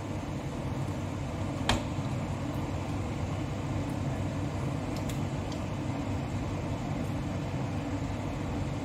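Steady low kitchen hum. Over it there is one sharp knock about two seconds in and a couple of faint clicks later, as raw chicken pieces are dropped by hand into a steel kadai.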